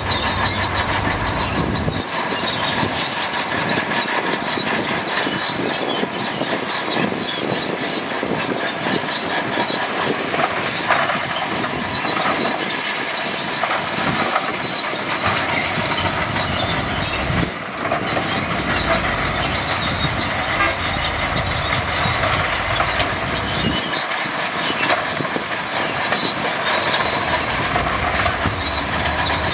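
Crawler dozer at work: a continuous metallic clatter with squeals, typical of steel tracks running over links and rollers. A low engine rumble swells and fades several times.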